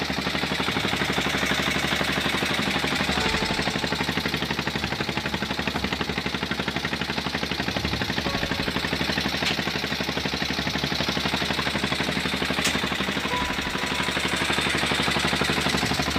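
Fishing boat's engine running at a steady speed with a fast, even pulse.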